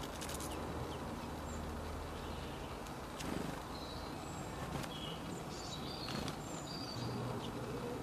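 Garden ambience with small songbirds calling: scattered short, high chirps and twitters, more of them in the second half, over a steady low hum.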